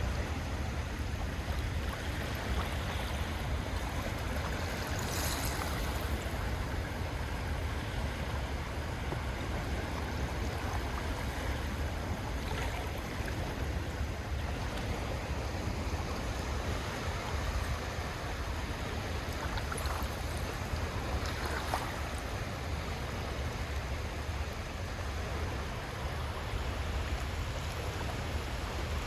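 Small calm sea waves washing onto a shell beach: a steady wash of water over a low rumble, with a few brief splashes.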